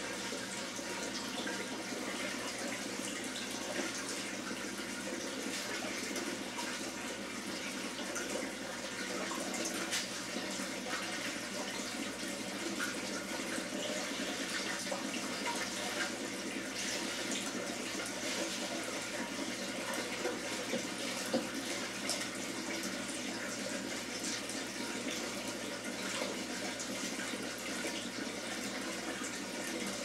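Water running in a steady rush, from an aquarium water change. One brief tick about two-thirds of the way through.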